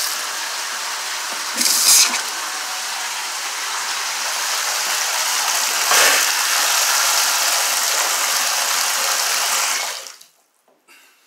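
Water running from a sink faucet into the basin and then spraying from a bathtub spout: a steady rush with two brief louder spurts, about two and six seconds in. It stops abruptly near the end when the tap is shut.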